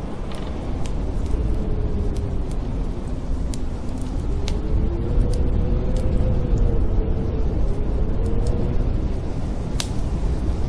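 Strong winter wind howling, a deep rumble with a wavering tone that rises and falls, over a wood fire in a fireplace giving off scattered sharp crackles, one of the loudest near the end.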